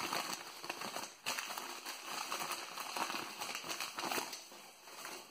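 Newspaper packing rustling and crinkling as hands unwrap a small diecast toy vehicle from it, with a short lull about a second in and fading near the end.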